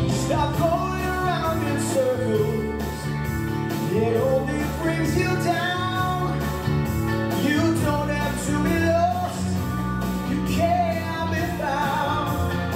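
A recorded song played back: a singing voice over band backing with a steady drum beat.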